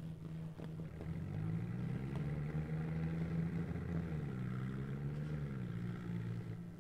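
Swaraj 963 FE tractor's diesel engine revving hard under heavy throttle as it drives a stunt. Its pitch rises about a second and a half in, holds, then dips and rises briefly before falling off near the end, as the front wheels lift into a wheelie.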